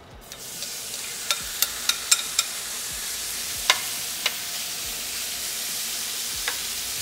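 Raw diced chicken breast hitting a hot skillet and sizzling, the hiss starting a moment in and then holding steady. Over it come sharp clicks of a utensil tapping and scraping the pan as the pieces are stirred, most of them in the first half.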